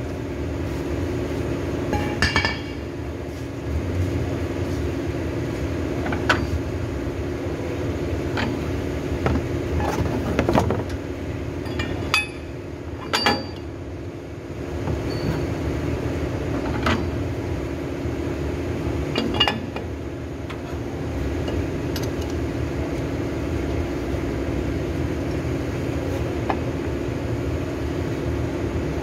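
Brake lathe running with a steady low hum while a brake rotor disc is refaced, with sharp metallic clinks and taps every few seconds.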